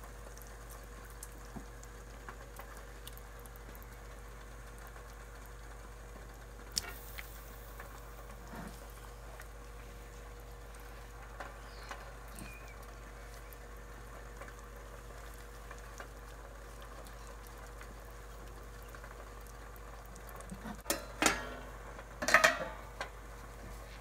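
Thick fish curry bubbling in a stainless steel pot on the stove, a steady simmer with scattered small pops over a faint steady hum; a few sharper knocks come near the end.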